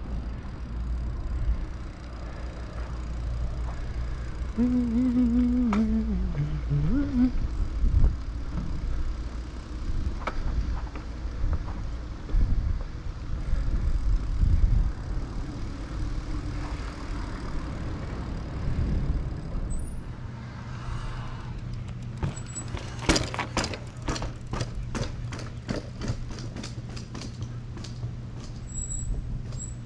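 Wind rushing over the microphone and tyre rumble from a bicycle rolling on pavement. About twenty seconds in, the rumble stops and a steady low hum is left, with a run of regular ticks, about three a second.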